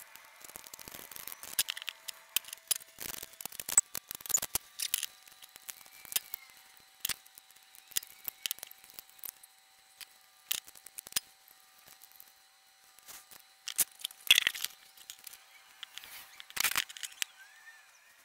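Irregular sharp clicks and knocks with a few short crackling scrapes, over a faint steady high whine.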